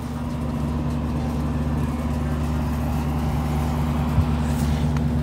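Condenser fan of a rooftop heat pump package unit running with a steady, even hum, while the unit's indoor blower motor stays off: the fault being chased.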